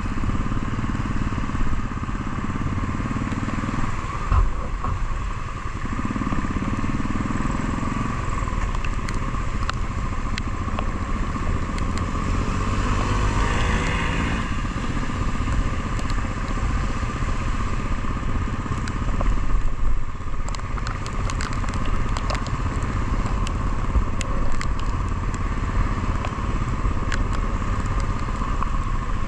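Motorcycle running as it climbs a hill road, with low wind rumble on the microphone throughout. A brief swell of another sound comes about halfway, and scattered sharp ticks come in the second half.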